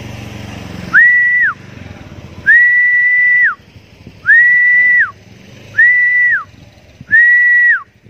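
A person whistling to call a pet Javan myna back: five high, level whistles, each about half a second to a second long, sliding up at the start and dropping at the end, with short gaps between.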